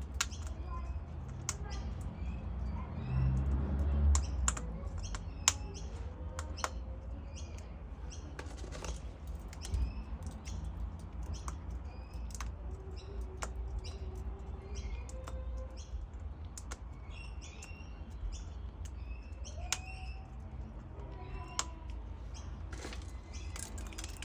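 A cockatoo munching, its beak giving sharp, irregular cracks and clicks as it bites and chews, with other birds chirping in the background over a low rumble that swells a few seconds in.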